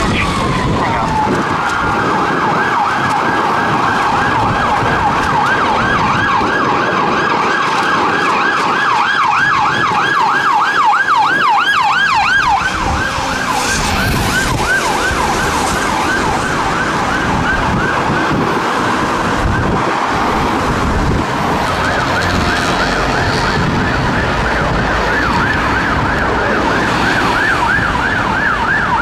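Police car siren dropping out of a slow falling wail into a fast yelp, about three and a half sweeps a second, which fades about halfway through. Near the end a second vehicle's siren, an ambulance, starts yelping at a similar rate over steady road traffic.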